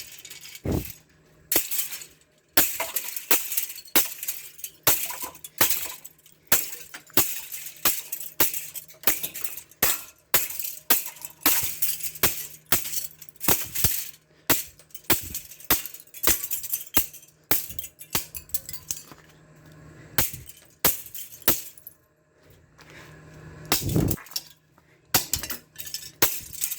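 Brittle plastic box fan grill being struck over and over with an adjustable wrench, cracking and shattering with sharp hits about once or twice a second; the yellowed old plastic has gone so brittle that it breaks apart at each blow. There is a short lull near the end, then a heavy hit.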